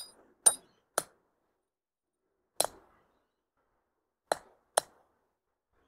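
Six short, sharp metallic clinks spread unevenly over a few seconds, the first with a brief high ring: steel climbing-bolt hardware (hanger, nut and tools) being handled.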